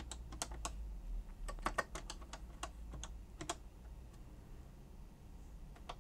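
Typing on the TRS-80 Color Computer 1 keyboard: a quick run of key clicks over the first three and a half seconds, then a few scattered presses, the last near the end being the Enter key that enters the program line.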